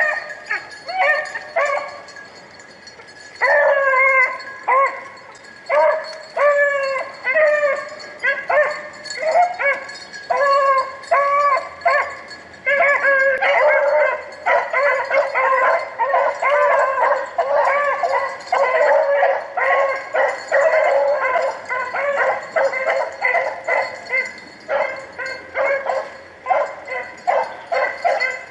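Rabbit hounds baying as they run a rabbit's trail: a few barks at first, then, after a short lull, steady overlapping bays from several dogs.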